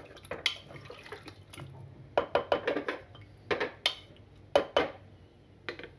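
A wooden spatula scraping and knocking against the inside of an aluminium pressure cooker while stirring pieces of meat in a watery curry. The scrapes and knocks come in several short clusters, with quieter gaps between them.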